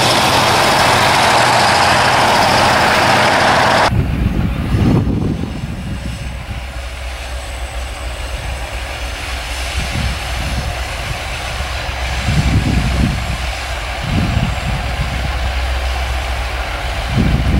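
A diesel freight train passing close, a loud steady rush of wheel and engine noise. About four seconds in it cuts abruptly to the low, steady drone of a diesel locomotive approaching from a distance, with a few brief low rumbling swells.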